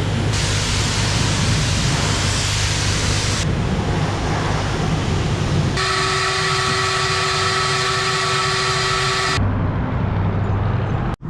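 Car wash running: a steady rushing spray and machine noise that changes abruptly several times, with a steady whine of several tones in the middle stretch. It cuts out sharply just before the end.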